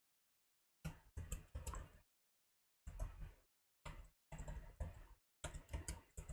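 Computer keyboard keystrokes typing a shell command, in short runs of clicks broken by pauses of dead silence.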